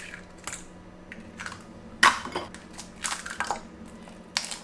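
Eggs being cracked against a bowl and their shells broken open: a series of sharp cracks and taps, the loudest about two seconds in.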